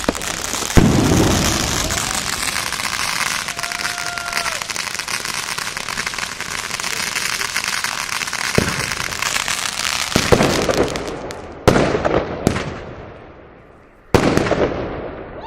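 Fireworks going off: a sharp bang about a second in, followed by several seconds of dense crackling, then four separate loud bangs near the end, each trailing off in crackles.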